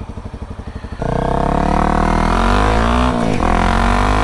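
Honda CRF250L's single-cylinder engine ticking over, then opening up as the bike pulls away about a second in, its note climbing in pitch, dipping briefly for an upshift around three seconds in and climbing again.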